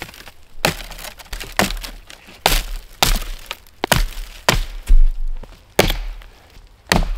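Hatchet chopping into a snow-covered fallen log: about ten sharp strikes at an uneven pace, one or two a second, the loudest about five seconds in.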